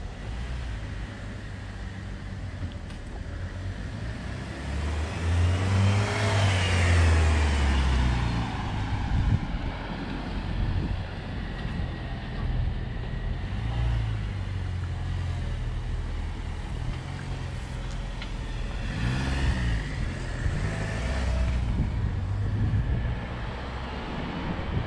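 Two cars driving past, the first about six seconds in and the second about twenty seconds in, each swelling and fading, over a steady background of traffic noise.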